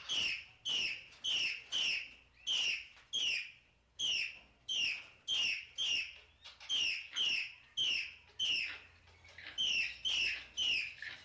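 A parrot calling in a long series of short, falling squawks, about two a second, with a couple of brief pauses.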